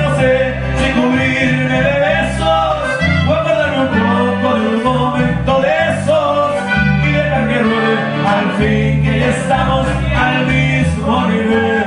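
Norteño band playing live: button accordion and guitar over a walking low bass line, with a man singing.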